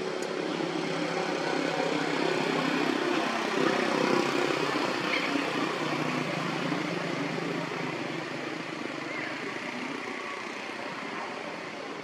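A distant engine drone that swells to its loudest about four seconds in, then slowly fades.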